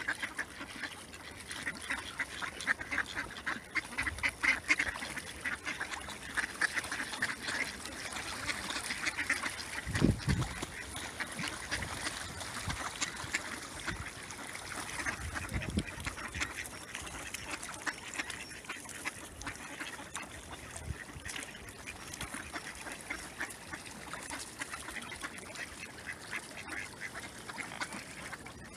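A flock of mallards quacking and chattering in quick overlapping calls, busiest in the first third. There is a single low thump about ten seconds in.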